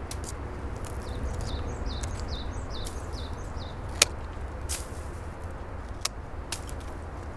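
Hand pruning shears snipping woody branches: a series of sharp clicks, the loudest about four seconds in. Small birds chirp in a quick repeated series during the first few seconds, over a steady low rumble.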